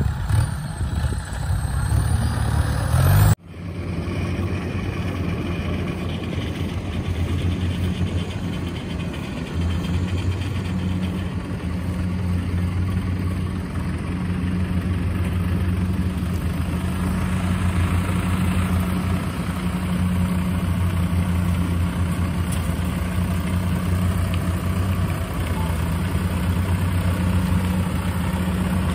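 Tracked rice combine harvester's diesel engine running steadily at a low, even hum. The sound drops out suddenly for an instant about three seconds in, then the engine carries on unchanged.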